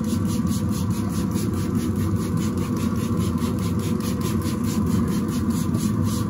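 Steady low mechanical rumble and hum, like a running motor or fan, with an even pulsing hiss of about five beats a second on top; it holds level throughout.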